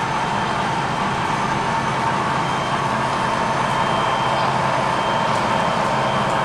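Steady, even mechanical rumble and hum from model railroad diesel locomotives running on the layout, with no distinct knocks or horn blasts.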